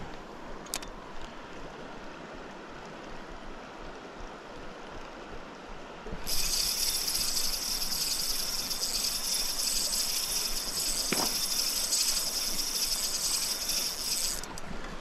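Shallow river running over stones. About six seconds in, a loud steady high-pitched buzz starts, holds an even pitch, and cuts off suddenly shortly before the end.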